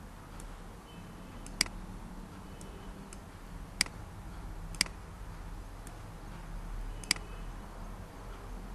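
Computer mouse clicking: four sharp single clicks a second or two apart, with a few fainter clicks between, over a low steady hum.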